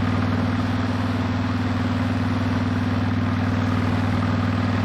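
2007 Honda VTX 1300S's V-twin engine running steadily at cruising speed, heard from on the bike over wind rush.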